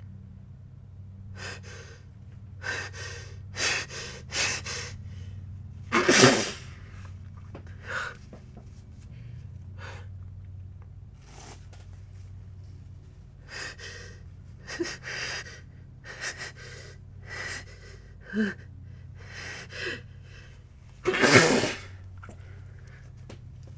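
A person sneezing twice, about 6 s and 21 s in; the second sneeze is the longer and the loudest. Before each one come several short, gasping, catching breaths as a sneeze builds up.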